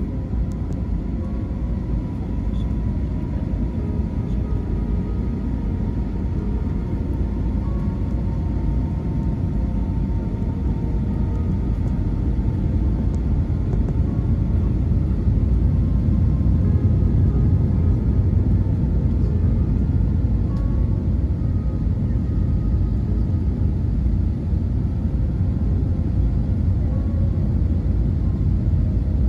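Steady low rumble of jet engines and rushing air inside an Airbus airliner's cabin in flight, with a faint steady hum. It grows a little louder about halfway through.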